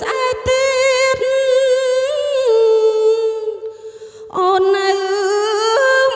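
A woman singing a Khmer song into a microphone through a PA, holding long notes with vibrato and the accompaniment barely heard. She breaks off briefly about four seconds in, then carries on.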